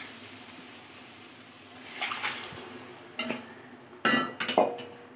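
Fried hilsa pieces and liquid being tipped into a pan of spiced onion masala: a fading sizzle, then several clanks and scrapes of cookware, loudest near the end.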